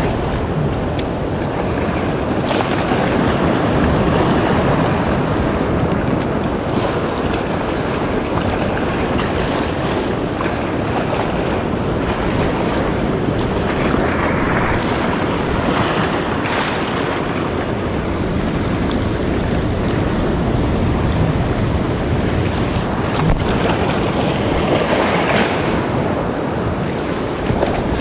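Sea surf washing over a shallow rocky reef, with wind buffeting the microphone: a steady rushing noise that swells a little now and then.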